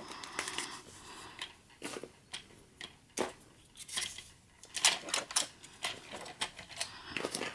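Irregular light plastic clicks and taps as foam darts are pushed into the chambers of a Nerf Zombie Strike Flipfury's barrel.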